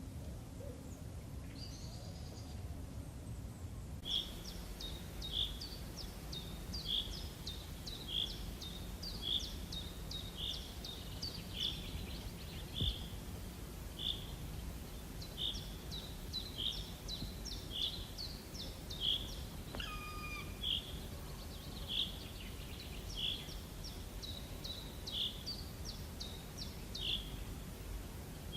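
A bird calling a short high note over and over, about every second and a half, with quicker chirps in between, over a steady low background rumble.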